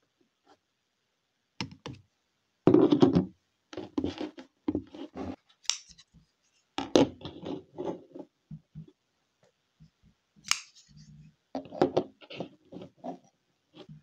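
Folding pocket knives being picked up and set down by hand: irregular clicks, scrapes and knocks, the loudest a short clatter about three seconds in.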